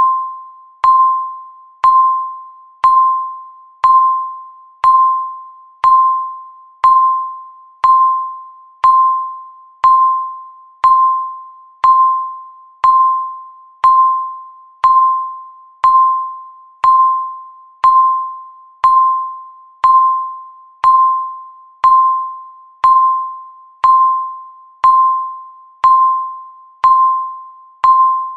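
Countdown timer beeping once every second: a single clear electronic tone struck about once a second, each beep starting sharply and fading away before the next.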